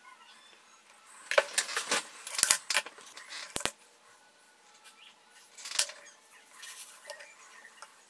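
Light metallic clinking and sharp clicks as small silver pieces are handled on a jeweller's bench: a cluster of clicks and rattles from about one to four seconds in, and one more near six seconds.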